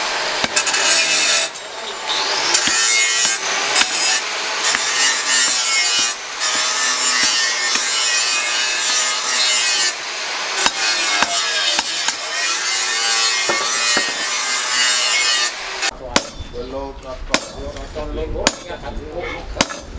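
A tool cutting or grinding with a continuous rasping noise for about sixteen seconds, with a few short breaks. It gives way to several sharp knocks near the end.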